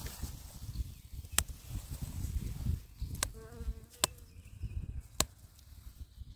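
A flying insect buzzing briefly near the microphone a little past halfway, over a low rumble and several sharp clicks.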